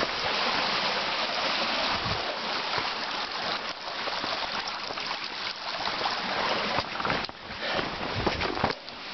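Steady rush of flowing stream water, with a few soft knocks now and then.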